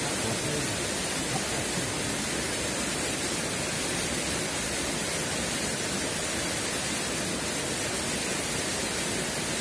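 Steady rush of flowing river water, an even hiss with no distinct events.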